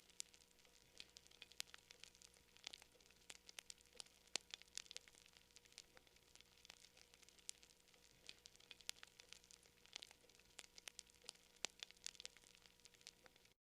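Wood campfire crackling: quiet, with many small sharp pops and snaps at irregular intervals over a soft hiss. The sound cuts out completely for a moment at the very end.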